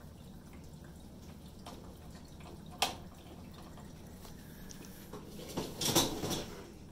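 A single sharp click a few seconds in, then a brief clatter near the end as a dishwasher's wire rack with dishes in it is handled, the dishes clinking.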